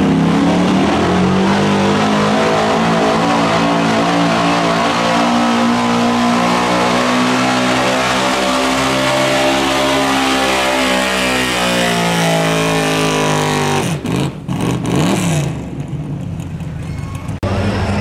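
Pickup truck's engine at full throttle, pulling a weight-transfer sled. The pitch climbs as the truck launches, holds high through the pull, then falls as the truck bogs down. The sound cuts off suddenly about fourteen seconds in, and a quieter engine is heard near the end.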